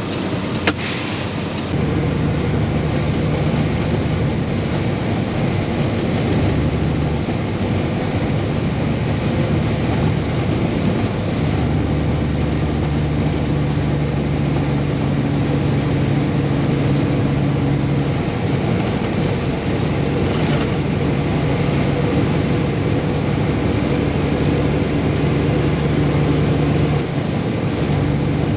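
Diesel truck engine running steadily: a constant mechanical hum whose low drone drops in and out every few seconds. A single sharp click comes about a second in.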